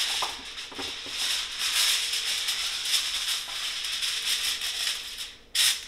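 Aluminum foil crinkling and rustling as a sheet is handled and spread out on a counter, with a short, louder crackle near the end.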